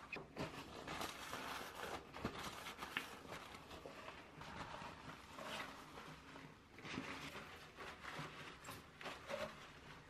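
A cloth rubbing and wiping over a ceramic bathroom sink around the drain plug, in several uneven scrubbing strokes with a few light knocks.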